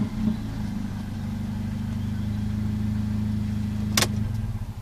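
Mercedes-Benz CLA 45 AMG's 2.0-litre turbocharged four-cylinder engine idling steadily after being revved. About four seconds in there is a sharp click, and the engine note dies away.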